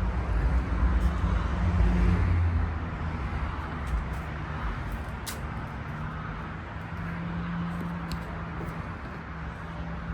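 Low, vehicle-like rumble, loudest in the first two or three seconds and then easing, over a steady hum, with a few light clicks and knocks.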